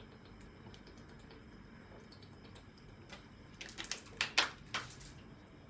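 Quiet kitchen room tone with a few faint ticks, then a quick cluster of light clicks and taps from about three and a half seconds in.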